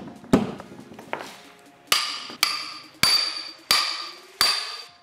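Hammer striking metal: six sharp blows, each leaving a short metallic ring, the last five at a steady pace of about one every two-thirds of a second.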